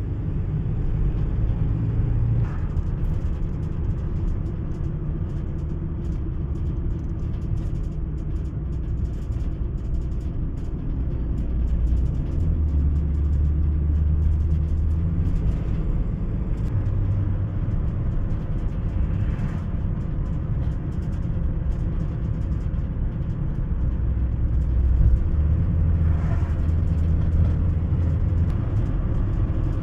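Engine and tyre noise of a car driving along, heard from inside the cabin: a steady low drone that swells and eases a few times.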